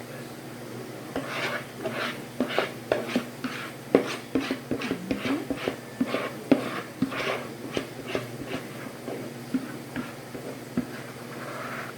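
A kitchen utensil scraping and knocking against a pan or dish in a run of short strokes, about two a second, as food is worked with it.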